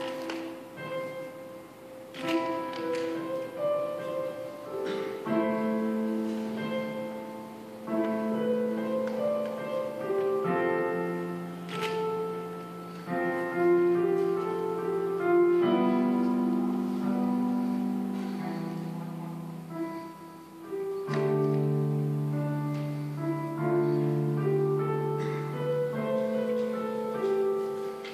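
Solo piano playing a slow classical-style piece: held chords in the low and middle range under a melody of single notes, phrase after phrase, with a short lull before a fuller chord about two-thirds of the way through.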